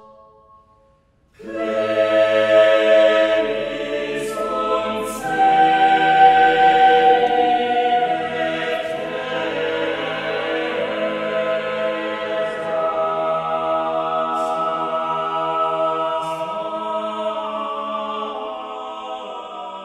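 Choir singing a cappella in sustained chords, recorded in a reverberant chapel with no spot microphones or added reverb and played back over loudspeakers. The voices enter after a brief pause about a second and a half in.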